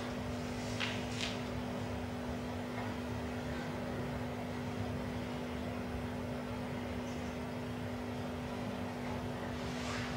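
A steady low hum with two held tones over a hiss, with a couple of faint clicks about a second in.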